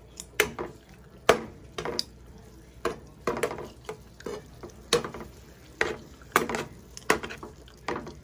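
Metal spoon stirring ground beef and diced vegetables in a ceramic-coated frying pan, knocking and scraping against the pan about once a second.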